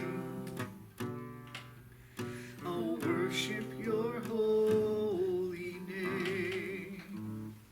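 Worship music: strummed acoustic guitar with a voice holding long sung notes over it.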